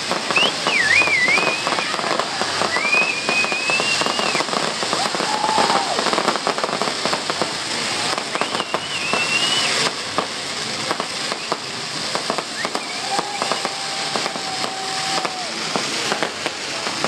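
Fireworks crackling, a dense run of rapid small bangs, with several long high whistles rising and holding over the crackle, about four in all.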